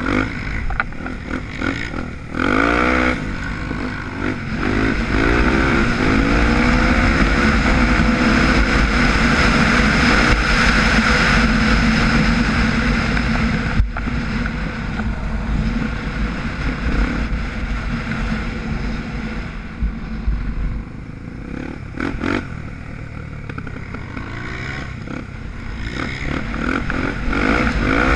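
Dirt bike engine heard from on board, revving up through the gears in repeated rising runs, holding high revs through the middle and easing off briefly about halfway, with another run of rising revs near the end.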